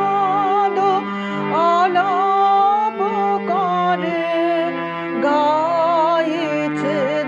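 Bengali devotional song (Brahmasangeet) in raga Khamaj: a single melody line sung with wavering, gliding ornaments over sustained accompanying notes, in phrases broken by short pauses.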